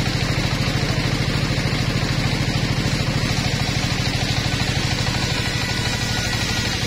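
Engine-driven portable circular sawmill running steadily, its engine chugging with a fast, even pulse while the blade rips a plank along its length.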